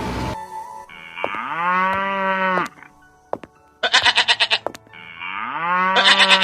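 Farm animal calls: two long, cow-like lowing calls, with a short, rapidly quavering bleat between them. Music cuts off just at the start.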